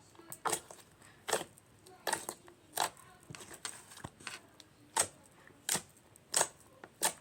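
Slime being pressed and squeezed by hand, giving sharp clicking pops at an even pace, about one every three-quarters of a second.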